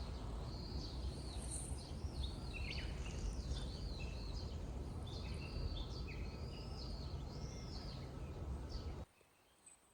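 Several birds singing in short, repeated whistled phrases over a steady low rumble. Both cut off abruptly about nine seconds in.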